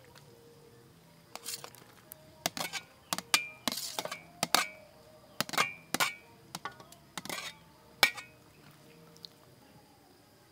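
Steel ladle clinking and scraping against a metal bowl and a metal wok, a dozen or so sharp ringing knocks in an irregular run that stops about eight seconds in, as ingredients are scraped from the bowl into simmering soup. Soft background music underneath.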